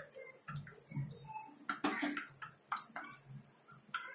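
Moong-dal-stuffed khasta frying in hot oil in a kadhai: the oil sizzling with irregular crackles and pops.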